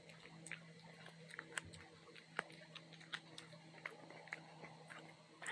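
A cat chewing a freshly caught shrew: an irregular run of small sharp crunches and clicks, several a second. A faint steady hum runs underneath.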